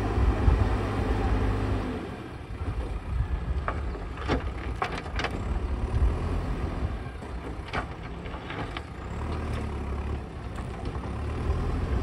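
JCB backhoe loader's diesel engine running steadily, with several sharp knocks in the middle stretch.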